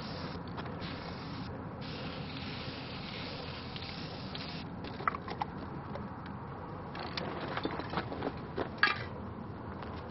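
Aerosol spray paint can hissing in bursts: a short burst at the start, a longer one, then one of nearly three seconds. From about five seconds in come a series of sharp metallic clicks and rattles, the loudest near the end.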